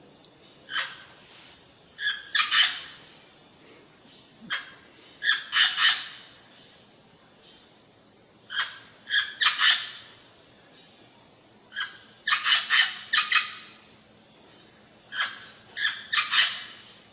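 A bird calling in repeated bursts, each a quick run of short, harsh notes, coming about every three to four seconds.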